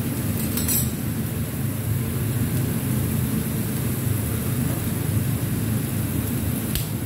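Handheld butane kitchen torch burning with a steady roaring hiss, a couple of light clinks on the plate about a second in and near the end.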